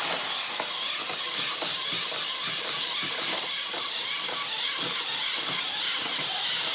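A steady hissing noise at an even level, with faint irregular ticks under it.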